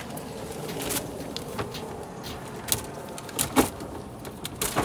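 Collapsible plastic sewer hose support being slid into an RV's utility bay and stowed: scraping and rustling of plastic against the bay floor, with several sharp knocks, the loudest a little past halfway.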